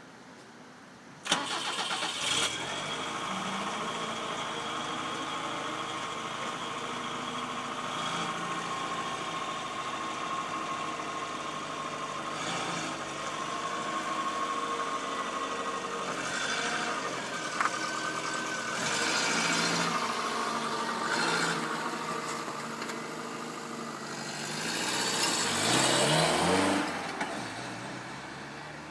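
FSO Polonez 1.6 GLI's four-cylinder petrol engine started about a second in, catching quickly and settling into a steady idle. From about sixteen seconds it is revved a few times, with a single sharp click among the revs. Near the end it revs up with rising pitch as the car pulls away, then fades.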